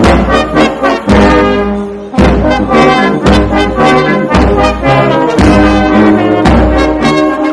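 Brass band playing a tune, deep bass notes changing about once a second under the melody.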